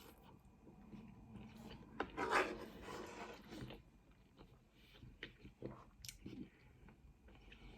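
A person eating egg noodles close to the microphone: soft chewing with small mouth clicks, and a louder noisy stretch of about a second and a half, about two seconds in.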